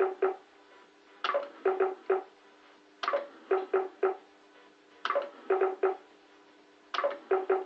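Bellfruit Scorpion 2 fruit machine spinning its reels over and over, about every two seconds. Each spin is marked by a sharp electronic sound and then a quick run of electronic beeps as the reels stop.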